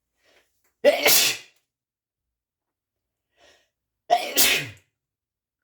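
A man sneezing "achoo" twice, about three seconds apart, each loud sneeze coming after a short faint intake of breath.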